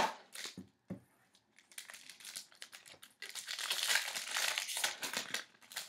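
Wrapper of a hockey trading card pack crinkling as it is handled and opened. There are a few scattered crackles at first, then steady dense crinkling from about halfway through.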